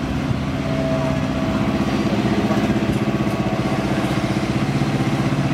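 Heavy-haulage truck's diesel engine running steadily as it slowly pulls a loaded multi-axle low-loader trailer.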